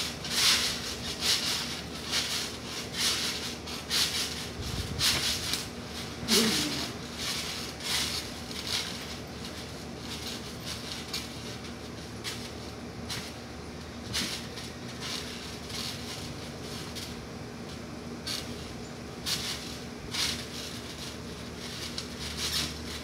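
Backyard trampoline bouncing: short, sharp spring-and-mat noises with each bounce, coming about once a second at first and then more sparsely, over a faint steady hum.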